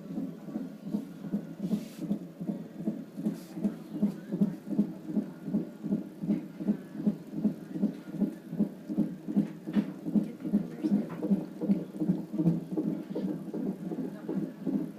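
Fetal heartbeat picked up by a Doppler monitor: a rapid, even whooshing pulse of about two and a half beats a second.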